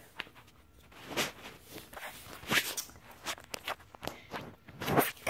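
Several soft, irregular scuffs and rustles, the loudest about five seconds in.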